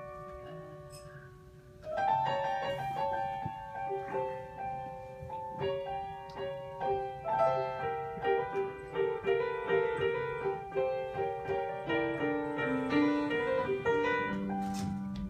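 Grand piano played solo in a slow blues: a soft passage, then from about two seconds in, louder chords and runs.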